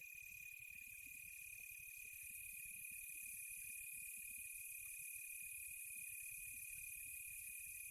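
Crickets and other insects chirring in a steady, continuous high-pitched chorus.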